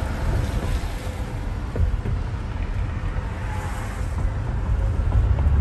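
Steady low rumble of wind and road noise from inside a moving car, with wind buffeting the microphone, growing a little louder near the end.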